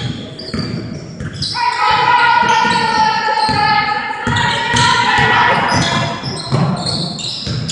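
Basketball game in an echoing gym: a ball bouncing on the hardwood court with voices in the hall, and a long held tone over it from about a second and a half in until about six seconds.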